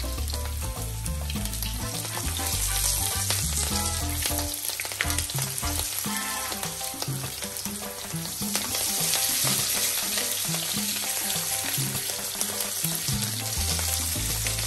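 Strips of bacon sizzling and spitting in hot fat in a grill pan, with halved garlic cloves frying alongside. A fork turns the strips over, giving the odd light scrape or tap against the pan.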